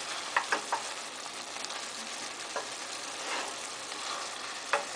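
Salmon and frozen vegetables sizzling steadily in oil in a pan, with a few light clicks scattered through.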